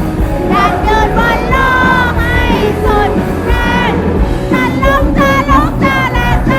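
Rock band playing live, with a lead singer's voice holding and bending notes over dense bass and drums.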